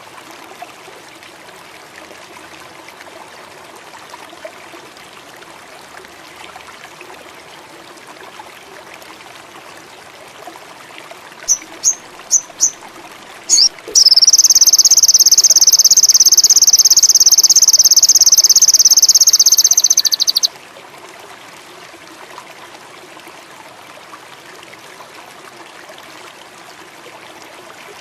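A sogon (sunbird) gives four short high chirps, then a loud, high, rapid trill that lasts about six seconds and cuts off suddenly. Behind it is a faint steady ambience of water and insects.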